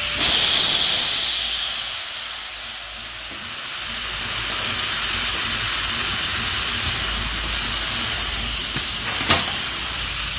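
Compressed air hissing out of a truck air brake chamber's hand control valve and hoses as the simulated brake pedal is let off and the air exhausts. The hiss starts loud, eases a little around three seconds in, then holds steady, with a couple of small clicks near the end.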